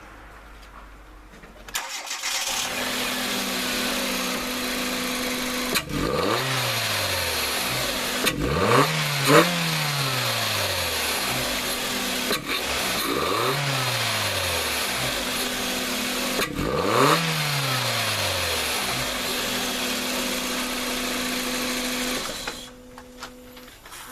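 2008 Hyundai Accent's 1.6-litre four-cylinder engine starting about two seconds in and idling. It is revved four times, each rev rising and falling in pitch, then shut off near the end.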